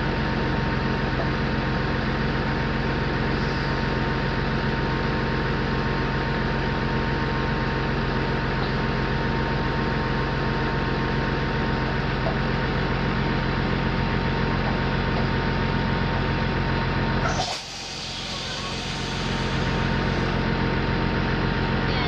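Diesel power pack of a self-propelled modular transporter (SPMT) running steadily, a constant engine drone with several fixed tones. About three-quarters of the way through the level suddenly drops and climbs back over a couple of seconds.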